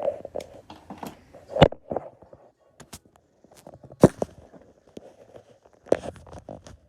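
Simple dimple fidget toy's bubbles being pressed, giving irregular pops and clicks. The loudest come about one and a half, four and six seconds in.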